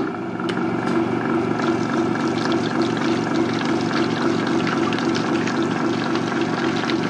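Vitamix Professional Series 500 blender's 2-peak-horsepower motor running steadily at a low speed setting, churning half a container of warm water with a few drips added into foam.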